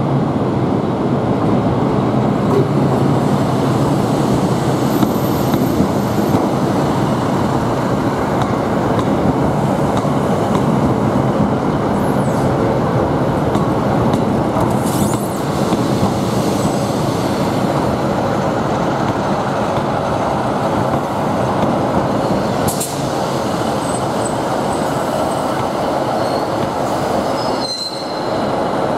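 ScotRail Class 156 diesel multiple unit running in past the platform, a steady rumble of underfloor diesel engines and wheels on rail, with a few short high-pitched wheel squeals on the curved track.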